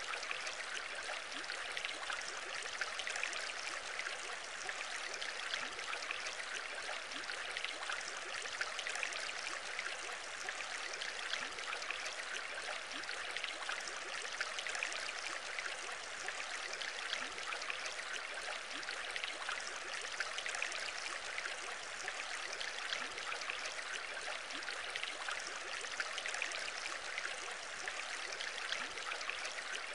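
Aquarium aeration: a steady stream of air bubbles rising and breaking at the water surface, an even bubbling, trickling sound with many fine pops.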